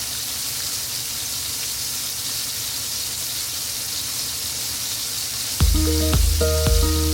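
Sole fillets sizzling as they fry in plenty of hot oil in a frying pan, a steady hiss. Background music comes in over it near the end.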